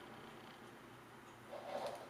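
Mostly quiet room tone, with one brief faint noise near the end.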